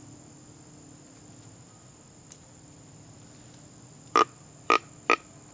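Three short grunts from a hand-blown deer grunt call, coming in quick succession about four seconds in, used to turn a passing young buck back toward the hunter.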